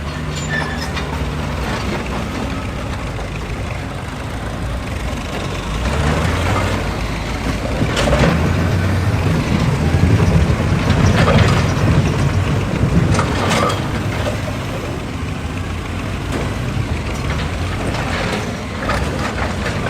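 Excavator's diesel engine running steadily, working harder and louder for several seconds in the middle, with a few short sharp mechanical noises about 8, 11 and 13 seconds in.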